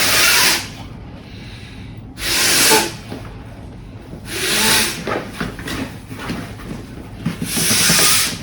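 Four long breaths blown by mouth through the one-way valve into a sleeping pad's pillow, each a hiss a couple of seconds apart, inflating the pillow. Faint rustling of the pad's fabric between the breaths.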